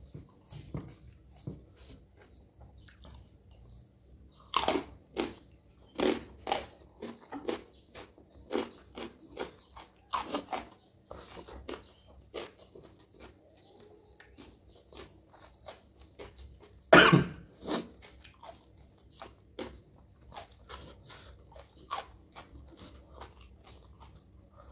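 Crisp crunching bites and chewing of raw lalapan vegetables and young jengkol, close to the microphone, in irregular crunches with the loudest pair about two-thirds of the way through.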